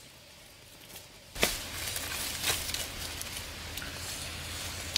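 Fresh leaves rustling and crackling as roasted chicken is picked apart on them by hand, with scattered small clicks. A sharp knock comes about a second and a half in, and the background is louder after it.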